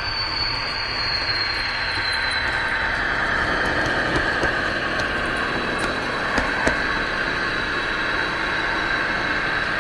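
Class 218 diesel-locomotive sound from an ESU LokSound 5 sound decoder in an H0 Märklin model, played through the model's small loudspeaker as it drives. The engine runs steadily with a high whine that falls slightly over the first two seconds and then holds, and two short clicks come about six and a half seconds in.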